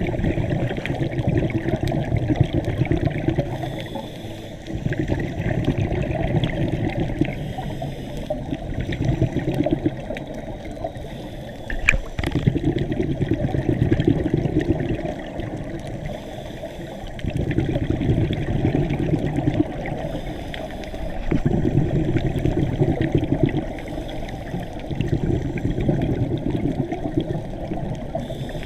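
Scuba diver's breathing heard underwater: gurgling exhaled bubbles from the regulator in stretches of a few seconds, broken by short quieter pauses for each breath in about every four seconds.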